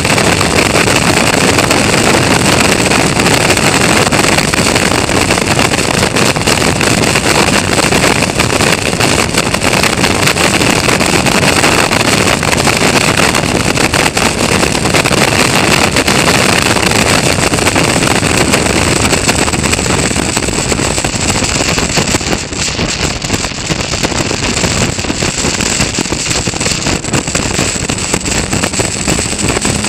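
Caterham Roadsport race car's engine running hard at speed, heard from an onboard camera under heavy wind noise on the microphone. The sound eases briefly about two-thirds of the way through, then picks up again.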